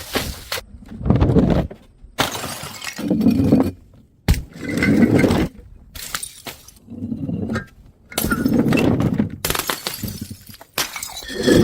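Glass bottles shattering: a series of about six loud breaking crashes, one after another with short gaps between them.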